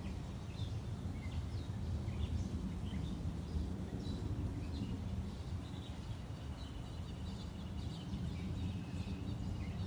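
Small birds chirping in short, scattered calls over a steady low rumble of breeze on the microphone.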